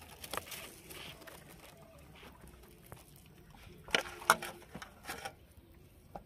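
Hands mixing and pressing wet flour bait in a steel plate: soft squishing and scraping with scattered small taps, and two louder sharp knocks close together about four seconds in.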